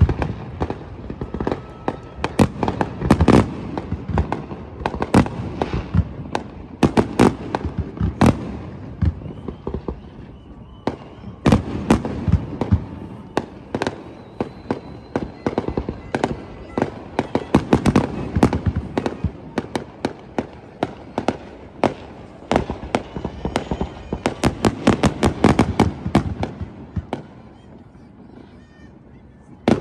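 Aerial fireworks exploding in a rapid, irregular string of bangs and crackles, dying down near the end.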